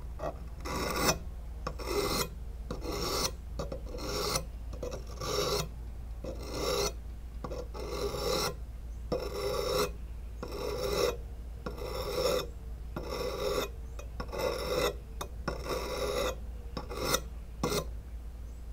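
Whetstone rubbed back and forth along the wet steel blade of a rubber-tapping knife. It makes rhythmic grinding strokes, a little more than one a second, that stop near the end.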